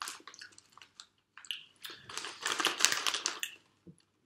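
Crisp packet crinkling in a hand and crisps being crunched: a run of quick, clicky crackles, densest about two to three and a half seconds in.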